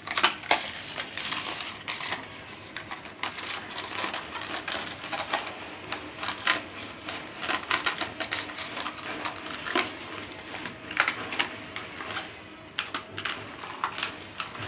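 Clear plastic cup clattering on a marble tile floor as kittens bat it about: quick irregular light clicks and knocks, with a few sharper louder knocks.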